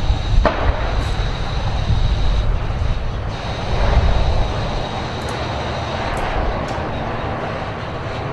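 Battle tank rumbling as it drives along the road, its engine and tracks making a steady low drone, with one sharp shot cracking out about half a second in.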